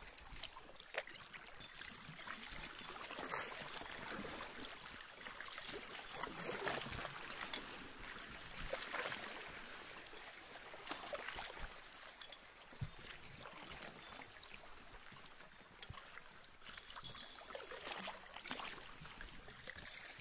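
Faint water lapping and trickling against a small boat's hull as it moves slowly over calm shallow sea. Small splashes come and go, and the sound swells and fades every few seconds.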